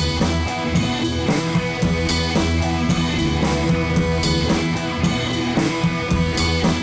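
Background rock-style music with guitar and drums and a steady beat.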